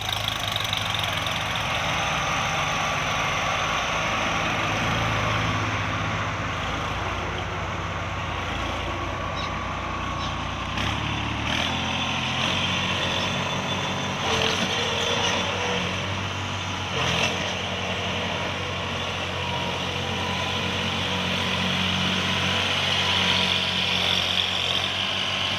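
New Holland 3600-2 tractor's diesel engine running steadily under load while it pulls a rotavator through the soil. The low engine hum thins about halfway through.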